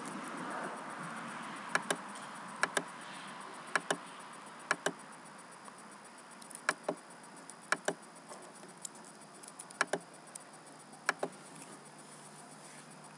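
Sharp clicks in pairs, a button pressed and released, about eight times at uneven intervals of about a second, over a faint hiss: a computer mouse button clicked while stepping through webcam effects.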